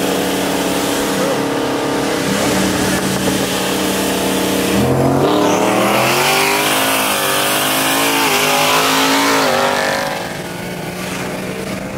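High-horsepower street cars racing at full throttle from a roll, heard from inside one of the cars. Their engines rev hard, with the pitch climbing through a gear from about five seconds in. About ten seconds in they lift off and the sound drops.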